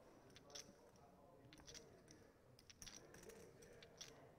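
Near silence: faint clicking of poker chips being handled at the table, a few scattered clicks over a quiet room hum.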